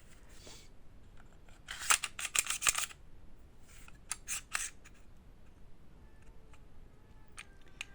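Sharp metallic clicks and clacks from handling an airsoft gas pistol: a quick cluster about two seconds in, a few more around four seconds, then scattered light clicks.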